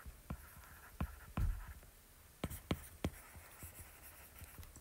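Stylus writing on a tablet's glass screen: faint, irregular sharp taps and short scrapes as letters are written, with a brief pause around the middle.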